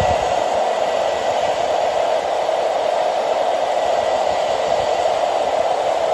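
Handheld blow dryer running steadily, blowing hot air onto a plastic panel to soften it for bending, with a faint high whine that fades out near the end.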